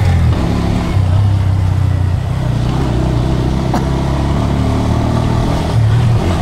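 Bajaj Pulsar N125's single-cylinder engine running as the bike is ridden over a rough dirt lane, its note easing off and picking up again a few times with the throttle. A single sharp click sounds about halfway through.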